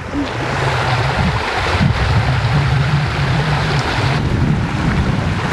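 Spring water gushing out of a corrugated roadside culvert pipe and splashing onto the stones below, a steady rushing noise, with wind rumbling on the microphone.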